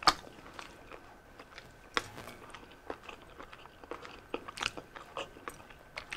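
Close-miked mukbang eating: a person chewing spicy instant noodles and balut, with wet smacks and small clicks from the mouth. Two sharper clicks stand out, at the very start and about two seconds in.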